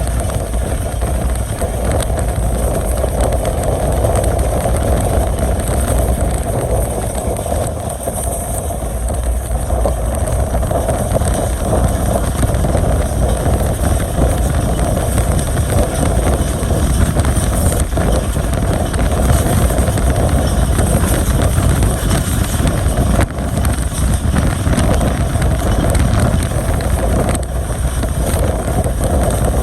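Passenger train running on the line: a loud, steady rumble of wheels on rails and the moving coach, with no single event standing out.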